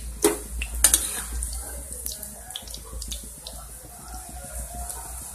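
Cauliflower florets sizzling in hot mustard oil in a kadhai, a steady hiss, with a steel spatula scraping and knocking against the pan a couple of times near the start.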